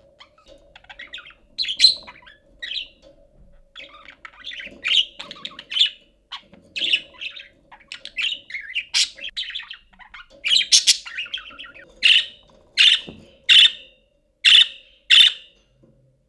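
Budgerigar chattering in an irregular run of warbles and chirps. From about twelve seconds in it changes to a string of sharp, evenly spaced chirps, about one every two-thirds of a second.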